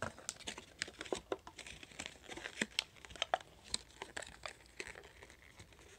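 Packaging crinkling and crackling in irregular bursts as it is handled, a toy being slid back into it.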